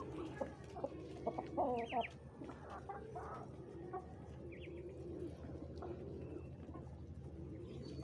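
Backyard poultry: hens clucking, loudest in the first two seconds, over low repeated cooing calls and a couple of short high chirps.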